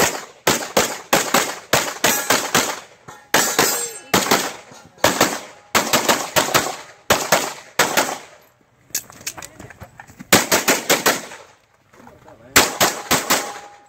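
Shots from a 9mm Major Open-division race pistol (Freedom Gunworks, compensated) fired in fast strings of pairs and bursts, several shots a second, with short pauses between strings.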